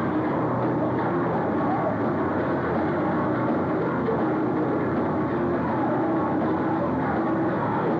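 A rock band playing live and loud, with drums, bass guitar and electric guitar together, heard as a dense, muffled, unbroken wall of sound through a camcorder microphone.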